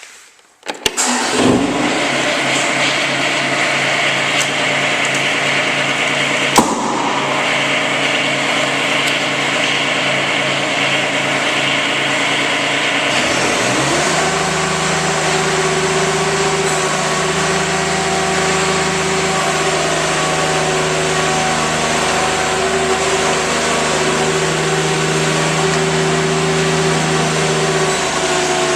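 Kubota diesel engine of a Bobcat X320 mini excavator starting about a second in and running steadily. A sharp click comes at about six and a half seconds. About halfway through, the engine speed rises, and it holds steady at the higher speed.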